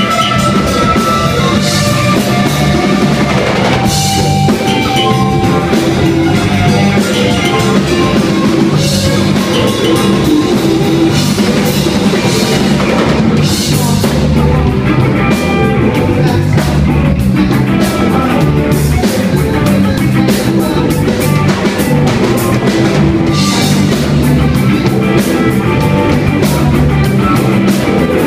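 Live rock band playing loudly: electric guitar, electric bass, drum kit and keyboard together with a steady beat.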